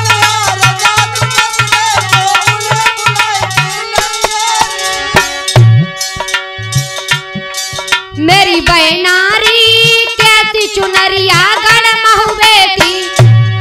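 Instrumental interlude of a Holi folk song: quick hand-drum strokes under a held melody, with a wavering lead melody coming in about eight seconds in.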